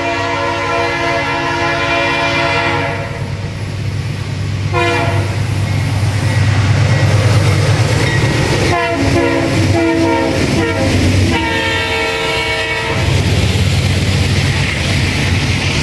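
A diesel locomotive's air horn sounds a long chord-like blast, then a short one, then more blasts from about 9 to 13 seconds in, dropping in pitch as the locomotive passes, over the deep rumble of the diesel engines. Near the end the double-stack container cars roll past with rail clatter.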